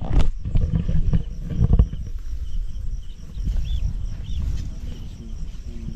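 Wind buffeting the microphone: a low rumble, strongest in the first two seconds and then easing, with a couple of faint high chirps in the middle.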